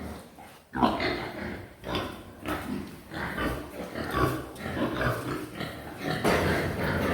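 Yorkshire pigs in a farm pen making rough, irregular grunts and calls, which become more continuous about six seconds in.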